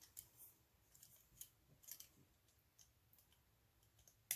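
Near silence, with faint scattered clicks and rustles of die-cut paper being handled, and one sharper click near the end.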